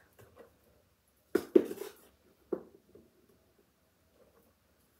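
A measuring cup knocking against the sugar container and mixing bowl as powdered sugar is scooped and poured in: two sharp knocks about a second and a half in, another a second later, then faint small scraping sounds.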